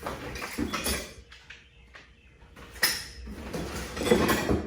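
Metal parts clinking and knocking as things are handled and moved about, with one sharp knock about three seconds in and a busier patch of clatter near the end.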